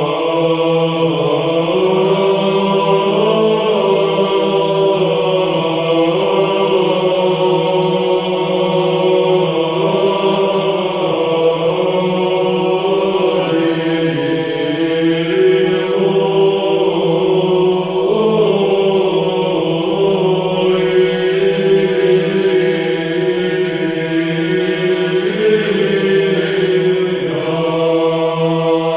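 Orthodox liturgical chant: low voices singing a slow, drawn-out melody over a steady held drone note.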